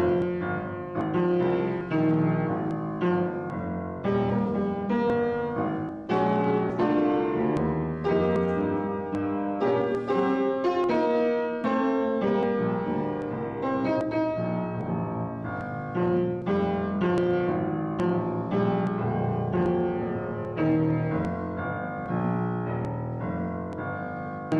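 Piano playing a slow instrumental piece, chords and melody notes struck one after another and left to ring.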